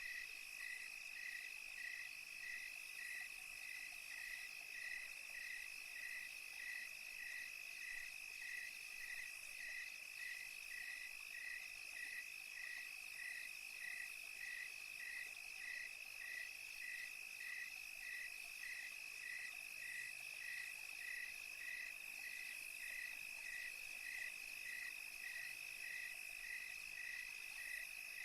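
Night insect chorus of crickets: a steady shrill trill, with another chirp repeating about twice a second.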